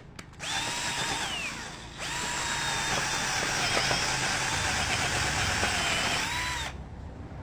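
Ken 12V cordless drill driver's motor whining in two runs: a short run of about a second and a half that winds down, then a steady run of about four and a half seconds that stops shortly before the end.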